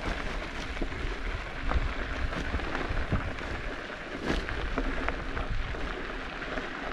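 Bicycle tyres crunching over a gravel road, with many small crackles and wind rumbling on the microphone.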